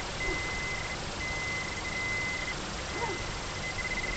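Metal detector giving a steady high-pitched tone in long stretches with a few short breaks, over a constant background hiss.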